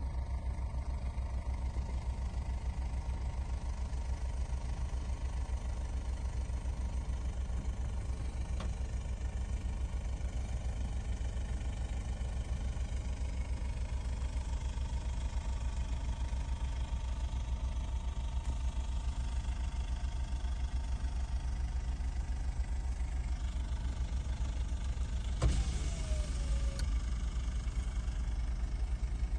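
Car engine running, heard from inside the cabin as a steady low rumble. About 25 seconds in, a sharp knock is followed by a short squeak that falls in pitch.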